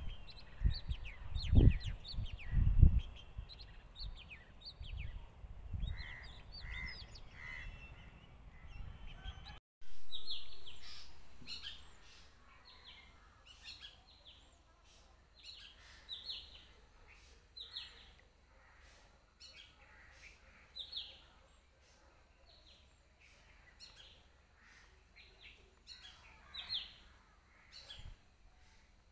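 Birds chirping with short, quick, high calls over loud irregular low rumbling, like wind buffeting the microphone. After a sudden break about ten seconds in, a bird repeats short high calls every second or so over a faint steady hiss.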